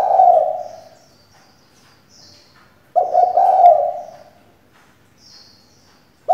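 Female spotted dove cooing from her cage, a rough, throaty coo about a second long, repeated about three seconds later, with a third starting right at the end: the call of a female decoy, used to draw male spotted doves into calling.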